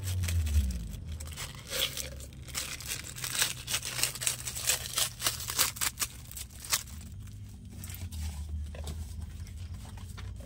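Small plastic masala sachets being torn open and shaken out, with irregular crinkling and crackling. A faint low steady hum runs underneath.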